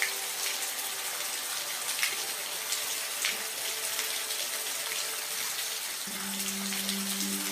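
Steady rain with individual drops tapping, over soft background music of long held notes; a lower note comes in about six seconds in.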